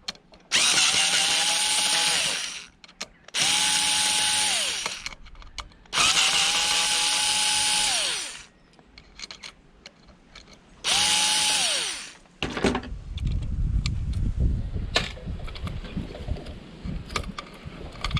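Electric drill-driver backing out screws from a plastic heater casing in four bursts, the motor spinning up to a steady whine for a second or two each time and winding down. After the last burst there is a low rumble with a few light clicks.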